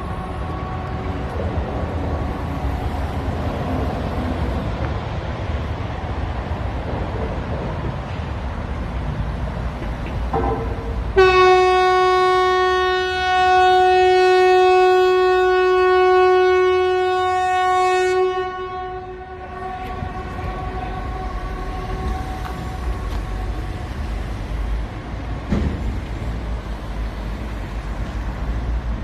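Swedish public warning siren ("Hesa Fredrik") test: one steady, loud tone held about seven seconds, starting about a third of the way in, then dying away. This is the "Important Message to the Public" signal, a 7-second tone repeated after 14-second pauses. Fainter, more distant sirens fade out at the start and trail faintly after the blast, over a steady low background rumble.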